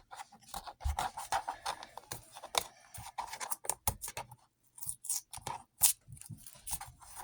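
Stickers being scraped and peeled off a hard surface: irregular scratching and sharp clicks.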